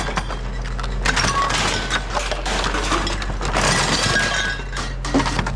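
Continuous clattering and clinking of hard objects knocking together, with brief ringing pings, over a steady low hum.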